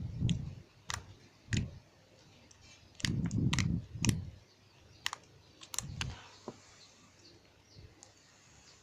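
Runny, sticky slime being kneaded and squeezed by hand with toilet paper worked in to thicken it: irregular sharp sticky clicks and pops with soft squelches. The sounds die away after about six seconds.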